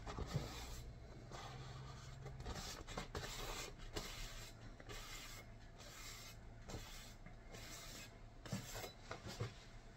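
Faint rubbing and rustling of a paper towel wiped along a wet steel gyuto knife blade to dry it, in short uneven strokes.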